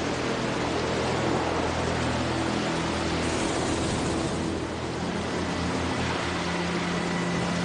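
Heavy surf: large waves breaking and washing against an iceberg's ice cliff, a steady dense wash of water noise. Low sustained tones run underneath.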